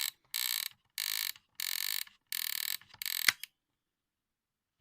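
The gear mechanism of an old Sony flip-clock alarm radio being turned by hand: about five short ratcheting runs of clicks in quick succession, ending in one sharp click about three seconds in. The alarm mechanism turns freely, working as it should.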